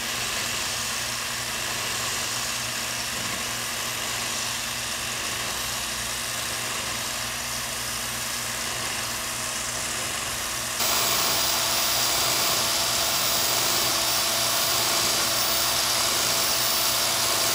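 Handheld electric power scraper running steadily as its blade step-scrapes the blued dovetail of a lathe compound slide, taking down the high spots. The running noise gets louder and brighter about eleven seconds in.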